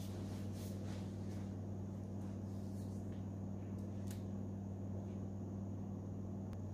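Room tone: a steady low electrical hum, with a few faint ticks.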